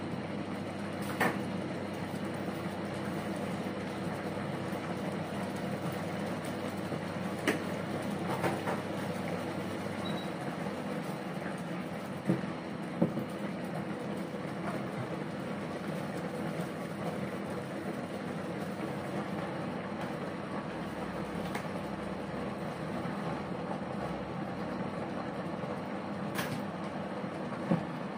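Sardine sauce simmering in a frying pan on an electric cooktop, a steady bubbling hiss over a low electrical hum, broken by a few sharp clicks and knocks.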